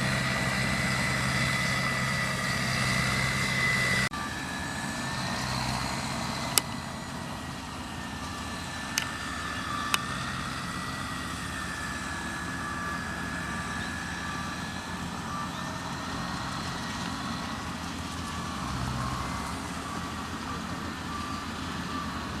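Yanmar AW70V combine harvester's diesel engine running steadily, with a high steady whine over it. The level drops suddenly about four seconds in, and three sharp clicks come a little later.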